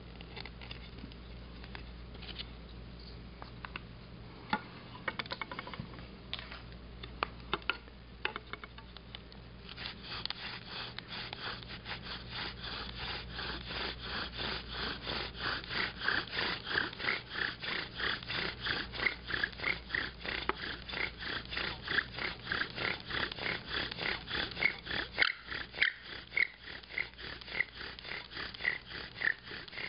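Bow drill: a short live oak spindle spun by a paracord bow, grinding in an oak fireboard to build up a coal. After some scattered taps and clicks as it is set in the notch, steady back-and-forth bow strokes begin about ten seconds in, each a rubbing squeak of wood on wood, growing louder as the drilling goes on.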